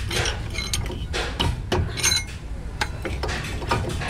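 Irregular metallic clicks and clanks of a large wrench being worked on a truck's wheel-hub parts, one knock ringing briefly about two seconds in, over a low steady rumble.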